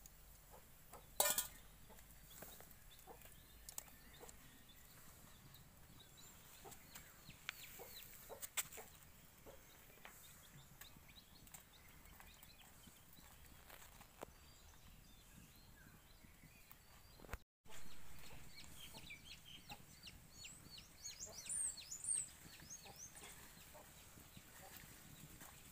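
Faint yard ambience with chickens clucking, and a run of short high chirps about twenty seconds in. A sharp click of a metal utensil against the pan comes about a second in.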